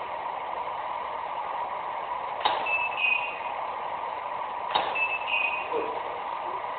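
Two camera clicks from the photo shoot, each with studio flash, about two seconds apart. Each is followed shortly by a short high beep from the strobe signalling that it has recharged. A steady room hum runs underneath.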